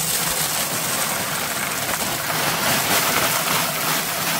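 Gravel pouring from a plastic bag into a metal bucket around a wooden post: a steady rush of small stones hitting the bucket and each other.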